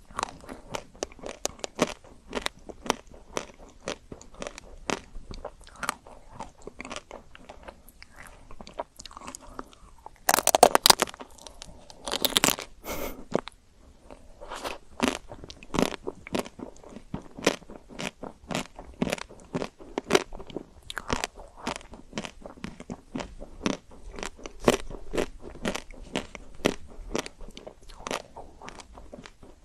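Close-miked biting and chewing of chocolate-coated ice cream: a steady run of crisp crunches as the chocolate shell cracks, with two louder bursts of crunching near the middle.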